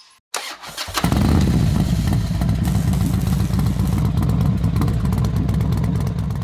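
A loud engine running steadily with a rapid low pulsing, after a short burst near the start, used as an intro sound effect; it fades out at the end.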